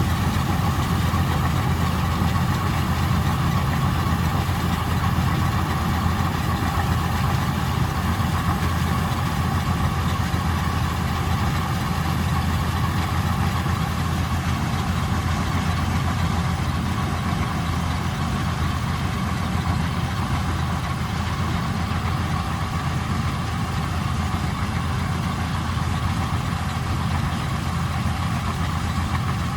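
Vistula KZB-3B combine harvester running steadily as it harvests grain: a constant engine hum with the whir of its working machinery, unchanging throughout.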